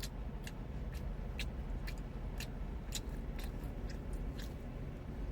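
A person chewing tough smoked rib tips: short, wet mouth clicks at about two a second, over a low steady hum.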